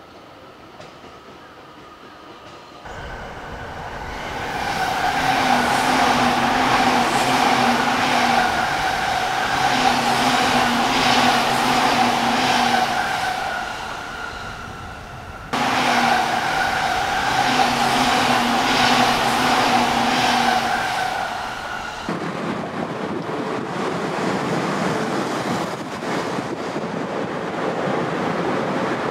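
Electric trains running past on the rails, among them a JR East 255 series limited express, in separately recorded passes with abrupt cuts between them. It is faint at first, grows loud about three seconds in, and the running noise carries a steady high whine.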